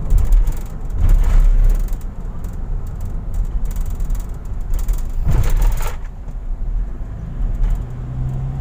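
Road and engine rumble of a car driving fast on an elevated expressway, a steady low drone with two louder rushes of noise, about a second in and about five seconds in. A steady low hum joins near the end.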